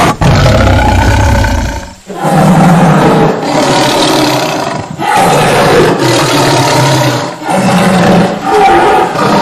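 Tiger roaring loudly several times in a row, each roar lasting two to three seconds.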